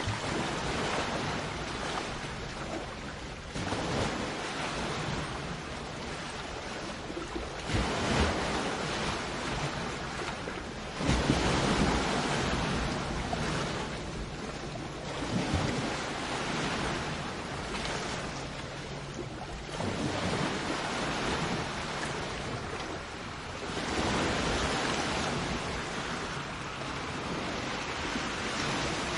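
Sea waves breaking and washing up a shore, the surf swelling again every four seconds or so.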